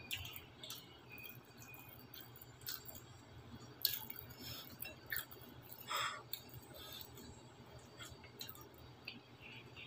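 Quiet eating by hand: faint chewing and mouth noises with scattered light clicks of fingers and food against a plate, the sharpest click about four seconds in.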